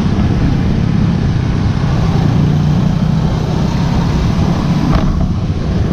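Motorcycle engine running steadily while riding along, with wind rushing over the handlebar-mounted camera. A single brief click comes near the end.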